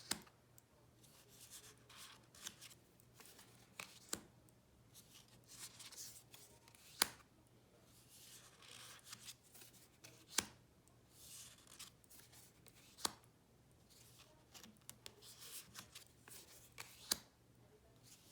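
Tarot cards being handled one at a time during a flip-through: soft sliding and rustling of card stock, with a sharp click every three to four seconds as a card is moved.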